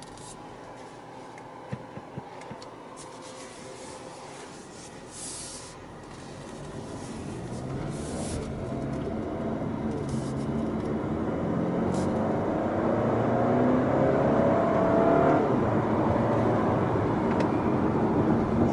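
Audi A4 2.0T's turbocharged four-cylinder engine accelerating, heard from inside the cabin. It is quiet for the first few seconds, then grows steadily louder with the revs climbing, and the pitch drops back about fifteen seconds in as the gearbox shifts up.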